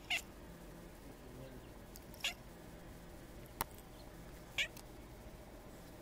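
Tortoiseshell cat giving three short chirps, about two seconds apart, excited at sparrows outside the window, with a sharp click between the second and third.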